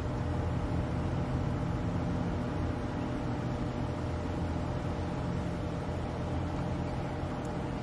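Pool pump running steadily while the sand filter is backwashed: a constant motor hum with a faint steady whine.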